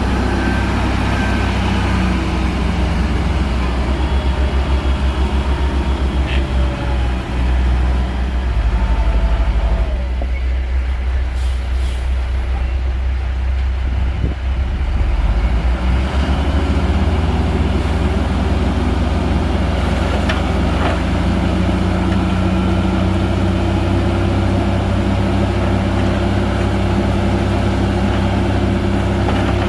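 Heavy bulldozer's diesel engine running, its note pulsing and shifting with load for the first half, then settling into a steady drone.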